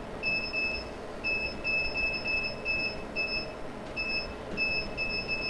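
TROCEN AWC708S laser controller's keypad beeping at each key press as a number is entered with the arrow keys: a string of about nine short beeps, all on the same high pitch.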